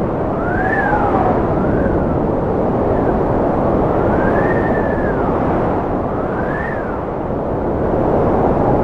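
Strong wind blowing with a steady low rush, and a whistling tone that rises and falls in pitch several times over it.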